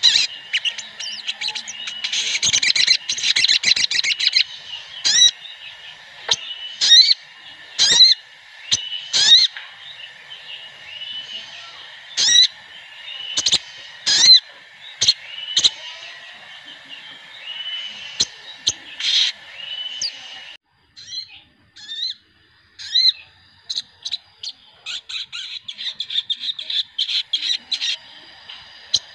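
Sogon (spiderhunter) calls from several birds at once, played as a lure recording to get a caged sogon calling: sharp, sweeping single notes roughly every second, with bursts of rapid chattering near the start and again near the end. A steady high drone runs behind the calls and drops out abruptly about two-thirds of the way through.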